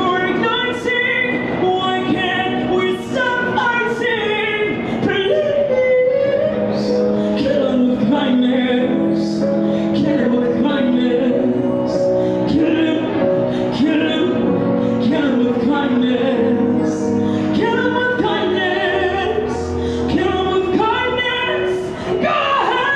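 A young woman's voice singing a melody into a microphone, amplified through a small portable speaker, over an accompaniment of long held low chords.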